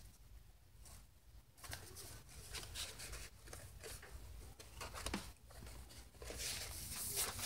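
Faint rustling and soft scraping of stiff eco-printed paper pages being handled, shifted and squared up against one another, in short irregular bursts over a low steady hum.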